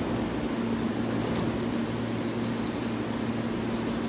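Seibu 20000 series electric commuter train standing at the platform, its onboard equipment giving a steady hum with a lower tone joining about half a second in.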